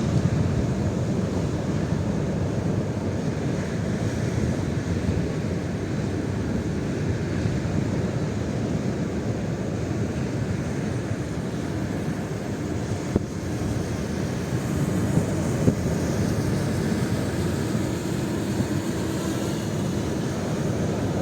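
Strong gusty wind buffeting the microphone: a steady, deep rumbling rush, with a couple of brief knocks about two-thirds of the way through.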